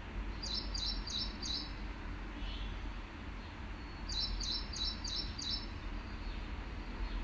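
A bird chirping in two quick series: four short, high chirps about half a second in and five more about four seconds in, over a steady low hum.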